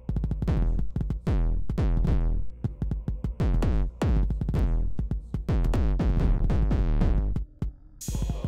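Live-coded electronic music played from MiniTidal code: a dense drum-machine beat of deep kick and bass hits, many sliding down in pitch, with clicky percussion over them. About eight seconds in it gives way to a steady throbbing drone with a hiss.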